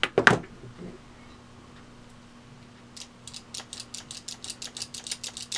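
A vintage Beaver bulk-vending mechanism being tested by hand after its repair. It begins with a couple of loud knocks, then its turning mechanism clicks fast and evenly, about seven clicks a second, for the last couple of seconds.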